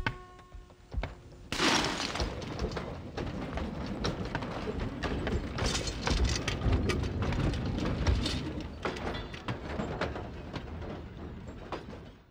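Household things being thrown about and smashed, clay pots breaking and metal vessels clattering. Two thuds in the first second, then from about a second and a half a dense, loud run of crashes and knocks that dies away near the end.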